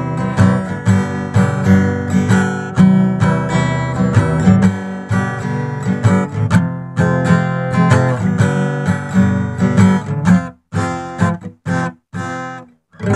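Intro music of a strummed acoustic guitar playing chords in a steady rhythm, breaking into a few short, separated chords near the end.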